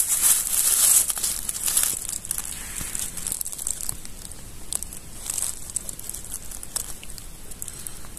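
Dry vegetation rustling and crinkling close to the microphone, loudest in the first two seconds, then fainter scattered crackles and snaps.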